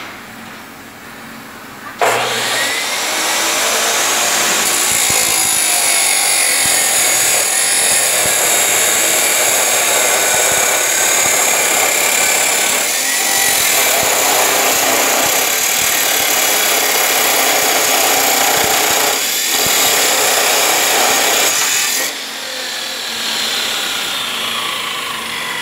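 DeWalt abrasive chop saw starting up about two seconds in, its cut-off wheel grinding through metal plate in a loud, steady cut for about twenty seconds. Near the end it is switched off and the wheel winds down.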